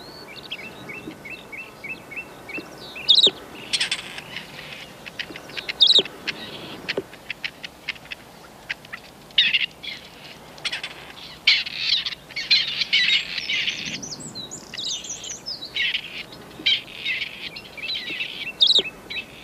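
Grey partridge chicks cheeping with high-pitched chirps, the anxious cries of a chick separated from its covey. A quick run of short notes comes first, then denser bouts of calling, with a few sharper, louder chirps.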